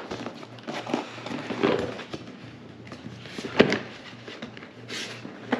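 A cardboard product box being handled and turned over: cardboard rubbing and scraping with a few short knocks, the sharpest about three and a half seconds in.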